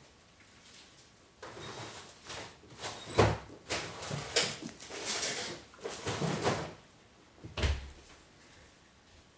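A puppy pushing and mouthing an ice cube on a wooden floor: a run of scrapes, clicks and knocks, with two sharper knocks about three seconds in and near the end.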